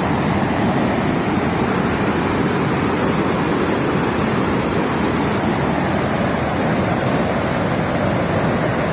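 Whitewater rushing over rock ledges in a small waterfall cascade, a steady, unbroken rush of falling water.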